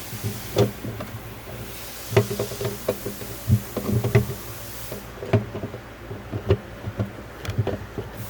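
Irregular light knocks and clicks of a transmission shift cable and its plastic fittings being handled and fed down through the floor under a car's carpet.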